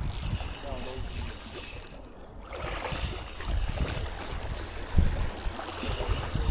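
Fishing reel being cranked with a ratchet-like clicking as a hooked catch is retrieved.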